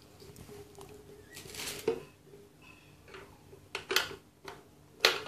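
Short clicks and scrapes of a screwdriver working the screws in the plastic base of a Philips juicer mixer grinder, with the casing knocking in the hands as it is turned; the sharpest clicks come about two, four and five seconds in.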